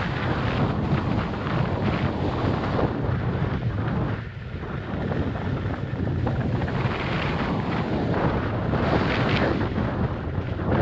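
Wind buffeting the microphone of a skier's camera on a downhill run into a strong headwind: a loud, gusting rumble that eases briefly about four seconds in.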